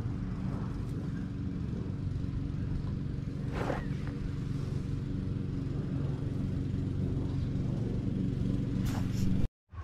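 A steady low engine drone, like a motor running nearby, under outdoor background noise. There is a short sharper sound about three and a half seconds in, and the audio cuts out briefly near the end.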